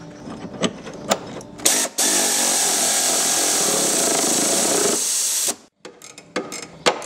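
A power drill-driver runs steadily for about three and a half seconds, spinning a bolt into a tow bar side bracket on the chassis rail, then stops suddenly. A few light metallic clicks come before and after it.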